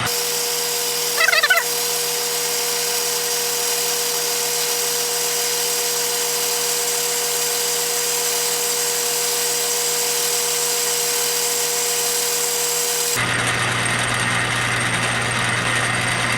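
Metal lathe running steadily under power feed, its spindle and geared carriage drive giving a steady whine over machine noise. About a second in there is a brief rising squeal, and about 13 seconds in the sound changes as a low hum comes in.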